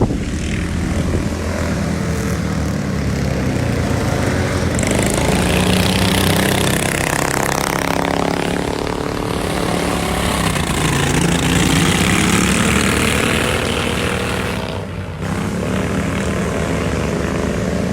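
Several racing ride-on lawn mower engines running at once, their pitch rising and falling as the mowers accelerate and pass, with a brief drop in loudness near the end.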